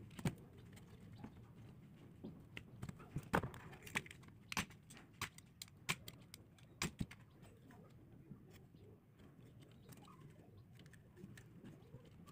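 Sharp small clicks and snips of pliers working a thin hookup wire, mixed with handling of a plastic multimeter case, about a dozen clicks in the first half; after that only faint handling sounds.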